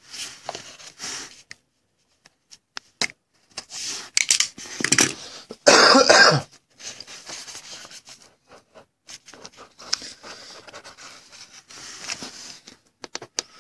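Cardboard hobby box being handled and opened: scattered clicks and short scrapes and rustles of card stock. A cough about six seconds in is the loudest sound.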